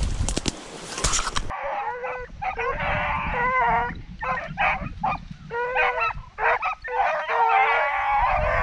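Wind noise and a few knocks for about a second and a half, then a pack of beagles baying in many overlapping voices, the sound of hounds running a rabbit.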